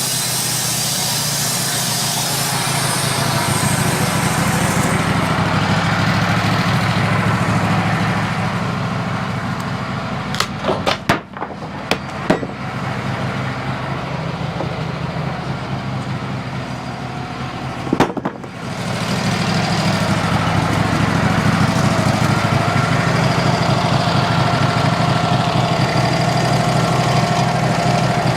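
Wood-Mizer LT15 bandsaw mill running steadily while sawing a maple log, with a hissing cut that fades a few seconds in. A few sharp metallic clanks come about halfway through, and once more a little later, before the engine steadies again with a higher whine over it.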